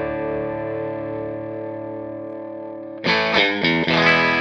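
Electric guitar played through the Silver Llama amp-sim plugin, its tone control turned down. A chord rings and slowly fades with its treble cut, then about three seconds in it is strummed again in a few quick strokes with brighter top end.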